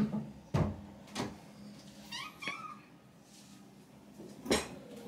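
A quick run of short, high-pitched cat mews about two seconds in, between a few sharp knocks, the loudest about four and a half seconds in.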